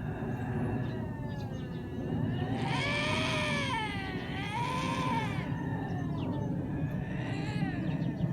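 Lynx yowling: several long, wavering calls that rise and fall in pitch, the loudest two back to back in the middle, fainter ones near the start and near the end. A steady low rumble runs underneath.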